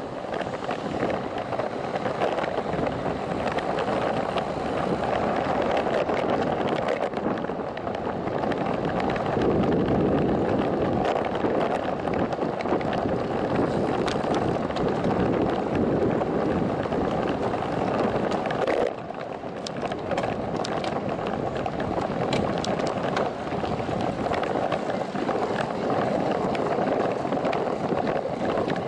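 Wind rushing over the microphone of a camera on a moving road bicycle, mixed with tyre and road noise, with scattered sharp clicks and rattles. The noise eases briefly about two-thirds of the way through.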